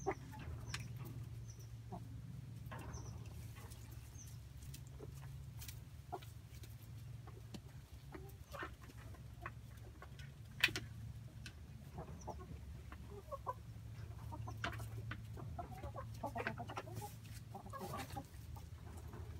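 Chickens clucking on and off, more busily in the second half, over a steady low hum. A single sharp click about halfway through is the loudest sound.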